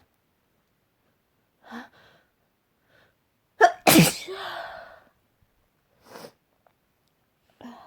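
A person sneezes once, loudly, about four seconds in: a short voiced catch, then an explosive burst that trails off over about a second. Short in-breaths come before it and a brief sniff follows about two seconds later. The sneezing fit is set off by wood dust.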